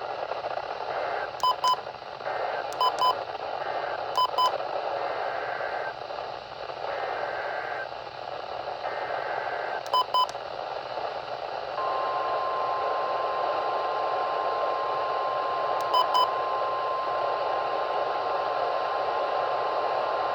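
Emergency Alert System signalling received over a hissing radio broadcast. Three short buzzy data bursts come about a second and a half apart, another comes near ten seconds in, and then a steady single-pitch alert tone starts about twelve seconds in and holds to the end, with one more burst over it.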